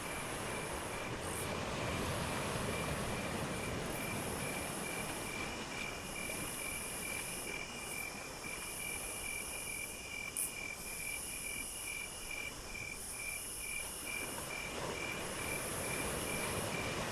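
Crickets and other insects calling: one chirps steadily at about two or three pulses a second, while another keeps up a very high trill that breaks off briefly every second or two, over a steady low background rumble.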